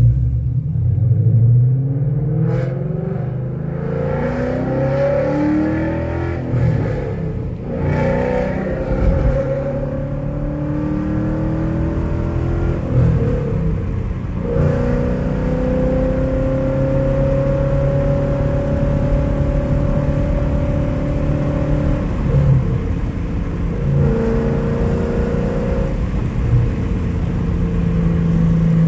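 2017 Ford Mustang GT's 5.0-litre V8, breathing through catless long-tube headers and an X-pipe, heard from inside the cabin as it accelerates hard through the gears of its manual gearbox. The engine note climbs in pitch, breaks at a gear change about seven seconds in and again about fourteen seconds in, then rises slowly in a higher gear. Near the end the throttle eases off a few times.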